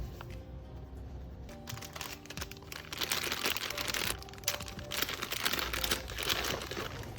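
Paper crinkling and rustling, loud and dense from about three seconds in, over quiet background music.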